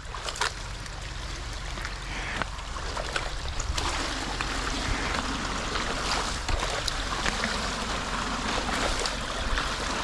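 Water trickling and gurgling at a beaver dam of packed sticks and mud, the flow sound growing a little louder about four seconds in. Small clicks and cracks of sticks come through as a pole is worked into the dam.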